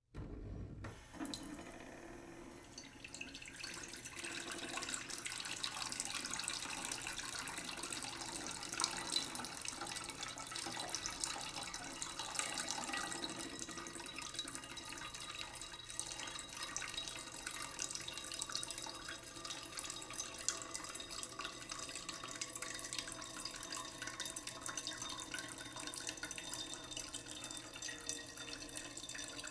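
Tap water running slowly into a cooking pot in a sink, a continuous trickle and splash whose pitch climbs gradually as the pot fills.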